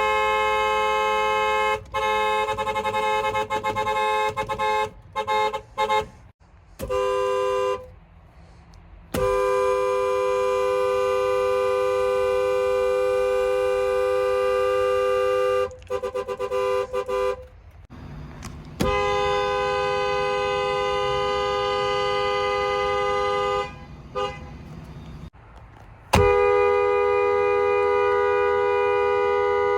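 Car horns honking: several long, steady blasts of a two-note horn, each held for a few seconds, with short quick toots in between.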